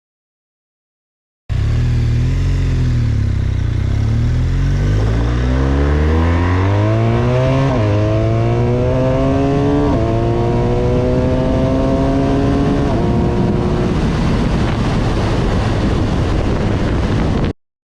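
BMW R1200R's boxer-twin engine running under way, its pitch climbing as the motorcycle accelerates and then levelling off. It starts suddenly after a short silence and cuts off abruptly near the end.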